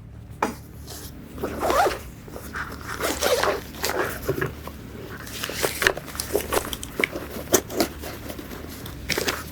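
Zipper of a soft gun bag being worked, with rustling of the bag's fabric and scattered sharp clicks and knocks as a folded AR-15 is handled and packed into it.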